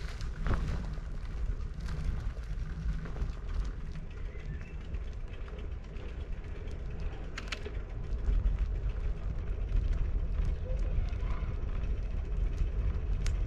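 Bicycle ride on an asphalt street: a steady low rumble of wind on the camera microphone and tyre noise on the road, with scattered light clicks and rattles from the bike.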